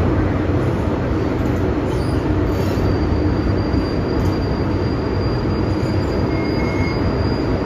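MTR M-train in motion, heard from inside the car: a loud, steady rumble of wheels on rail and running gear. A thin, high, level whine comes in about two seconds in and holds, and a brief second tone sounds near the end.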